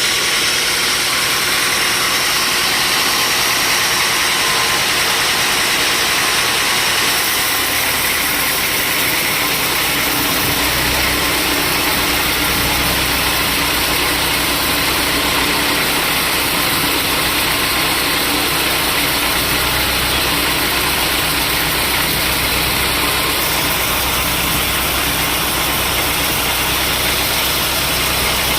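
Sawmill machinery running steadily with a loud, dense hiss. About ten seconds in, a deeper hum comes up and holds.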